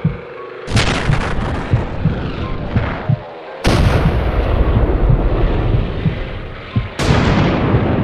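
Three sudden loud booms about three seconds apart, each carrying on as a rolling rumble, like a dubbed-in explosion or artillery sound effect.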